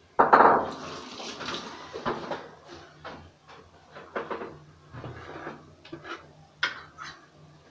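A sudden loud clatter just after the start, then scattered knocks and clinks of kitchen pots and utensils, over a faint steady low hum.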